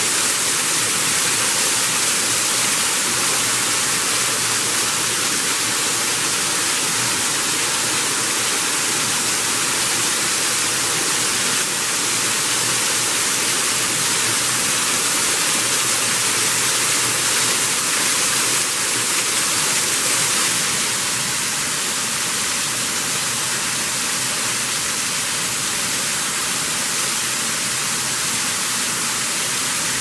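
Small waterfall pouring off a rock ledge and splashing onto a boulder and rocks below: a steady rush of falling water.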